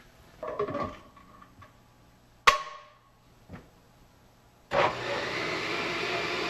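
A sharp clack and a smaller knock, then about three-quarters of the way in a high-powered countertop blender switches on and runs steadily, blending soaked cashews with water into a thick drink.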